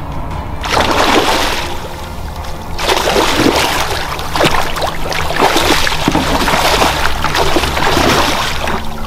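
Water splashing and churning in two spells, the first about a second in and a longer one from about three seconds on, as a hooked pike thrashes at the surface beside the boat during landing.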